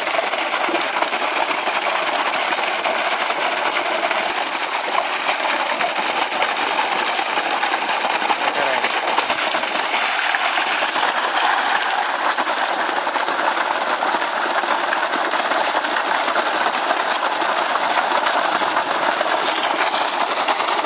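Heavy stream of water gushing steadily from a PVC irrigation pipe, splashing onto the grass and into a metal colander basin as raw chicken pieces are rinsed in it.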